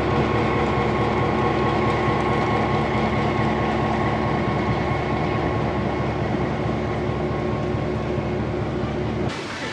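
Standing train's locomotive running at idle: a steady loud rumble with a constant hum, which cuts off suddenly near the end.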